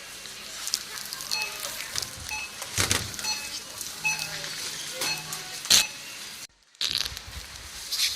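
Shop background noise: a series of short, high electronic beeps, roughly one a second, among clicks and clatter. The sound cuts out for a moment a little past six seconds.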